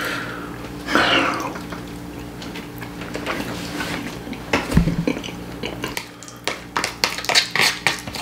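A metal fork scraping and clicking against a black plastic takeout tray, with wet, close-up eating sounds and a low thump about five seconds in. The clicks come quickest near the end.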